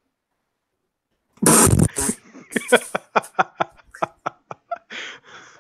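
Men laughing hard: a sudden loud burst of laughter about a second and a half in, then a run of short, evenly spaced laughs, about three a second.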